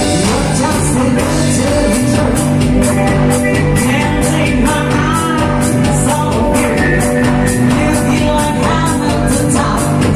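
Live band playing a pop song loudly, with cymbals keeping a steady beat under bass and held notes, and a voice singing over it.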